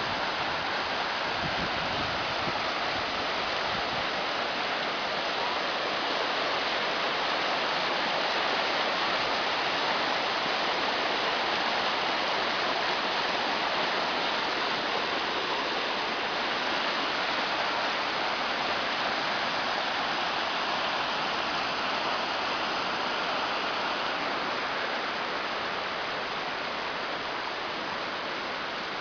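Floodwater rushing in a steady, continuous flow, easing slightly near the end.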